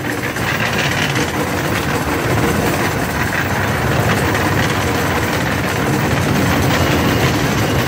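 Miniature park train running along its track, a steady rumble of engine and wheels heard from an open passenger car, growing slightly louder toward the end.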